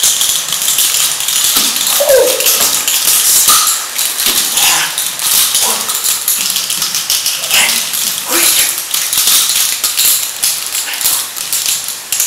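Heavy iron nunchaku swung fast, its thick chain rattling and clinking steadily with each swing. A few short yelps sound over it.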